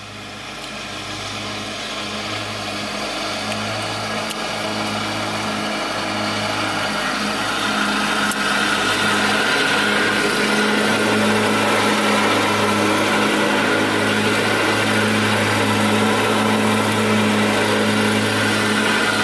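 Lawn mower engine running at a steady speed, growing louder over the first eight seconds or so as it comes closer, then holding steady.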